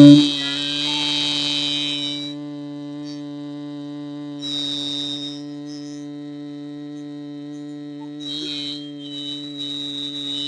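A person humming a long, steady 'mmm' on one low pitch: the humming exhale of bhramari pranayama (bee breath). It drops sharply in loudness just after the start, then holds steady on the same note, with faint hissing now and then.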